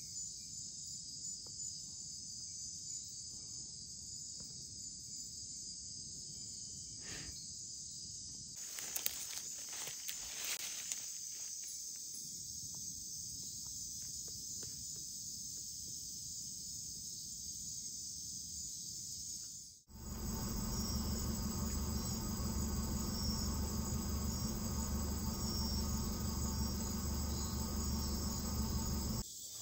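Steady, high-pitched chorus of night insects such as crickets. There is a brief rustle of leaves about nine to eleven seconds in. Past the middle, the sound cuts to a louder stretch with a low steady rumble beneath the insects.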